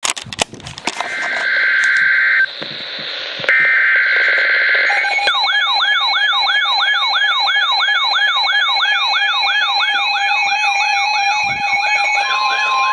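NOAA weather radio receivers sounding a warning alert. Two raspy bursts of SAME digital header data come first, then several receivers start warbling siren-like alarms that sweep up and down about two and a half times a second. Near the end the steady 1050 Hz warning tone joins in.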